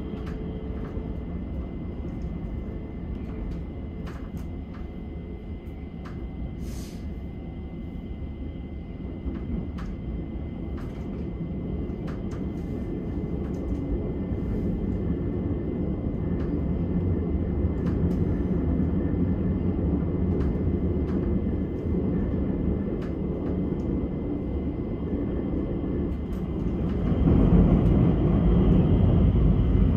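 Stockholm metro train running, heard from inside the carriage: a steady low rumble of wheels on rail with faint high tones and scattered clicks. The rumble grows noticeably louder near the end.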